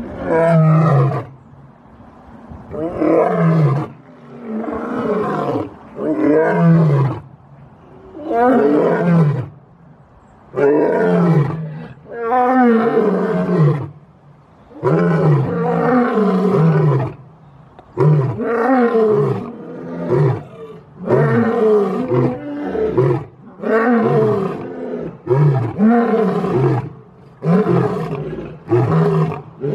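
A lion roaring in a long series of about sixteen deep calls, each falling in pitch. The calls grow shorter and come faster toward the end.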